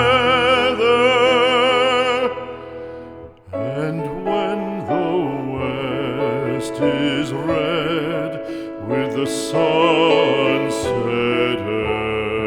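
Classical solo voice singing with wide, even vibrato over accompaniment: a long held note that ends about two seconds in, then, after a short pause, further sung phrases.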